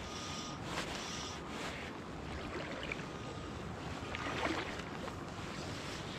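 Shallow river water flowing and rippling steadily, with a brief louder sound about four and a half seconds in.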